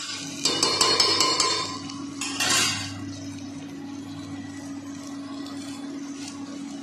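Steel spoon scraping and clinking against the metal pressure cooker as fried rice is stirred, in a burst of rapid clinks about half a second in, then a brief swish about two and a half seconds in. A steady low hum runs underneath.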